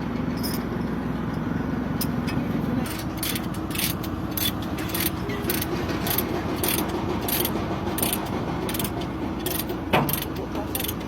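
Heavy diesel engine running steadily, its pitch stepping up about three seconds in, with a quick run of regular metallic clicks over it and a sharp knock near the end.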